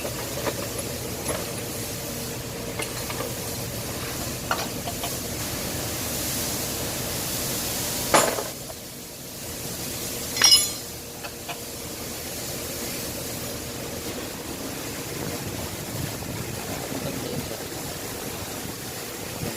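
Metal engine parts and hand tools clinking and clanking during an engine teardown: scattered light ticks, and two louder metallic clanks about two seconds apart near the middle, over a steady background hum.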